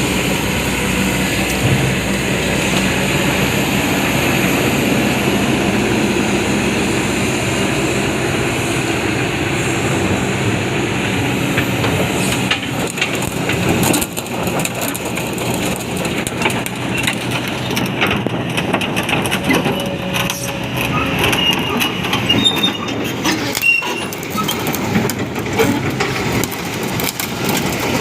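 Kobelco SK200 hydraulic excavator with its diesel engine running steadily. From about halfway through, rapid metallic clanking and knocking joins in, with thin high squeals near the end, typical of the steel track undercarriage.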